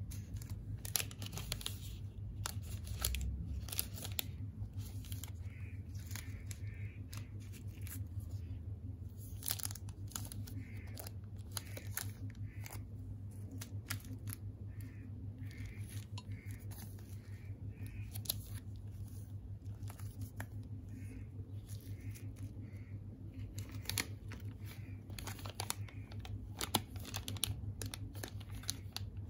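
Plastic chocolate-bar wrappers crinkling and crackling as they are handled, picked up and set down, with a steady low hum underneath.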